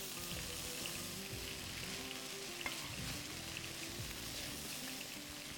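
Rice with diced vegetables sizzling softly in a hot pot as it is stirred with a spatula, the cooking liquid absorbed and the rice nearly done. Faint background music runs underneath.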